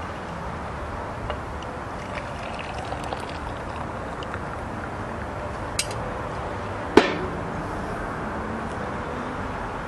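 Coffee poured from an enamel percolator into a ceramic mug, then a sharp clank about seven seconds in as the pot is set back down on the metal grill grate, over a steady background hiss.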